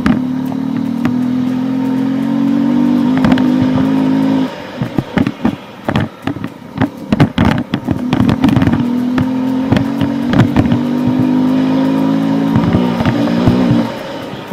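Honda CRF250L dual-sport motorcycle's single-cylinder engine pulling along a dirt track, its pitch slowly rising. About four and a half seconds in the engine note drops away into a few seconds of knocks and clatter, then it pulls and rises again before dropping off near the end.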